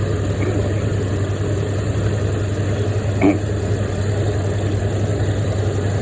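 Vehicle engine idling steadily with a constant low hum. About three seconds in there is a single short metallic click as the hood latch and its spring are worked by hand.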